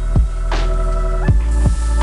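Background music with a steady beat: sustained synth tones over a deep pulsing bass.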